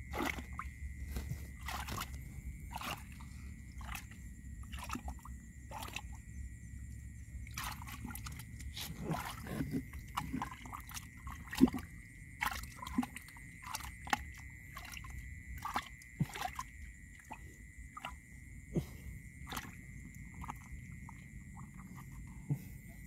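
A hand digging and groping in a wet mud hole: irregular squelches, sloshes and small clicks and scrapes of mud and clods, some louder than others.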